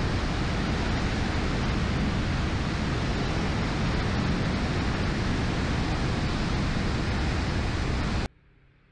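Lilium 5th-generation demonstrator's electric ducted fans and rushing airflow, heard by a microphone mounted on the aircraft's wing in flight. It is a loud, even rushing noise with no distinct tone, and it stops abruptly about a second before the end.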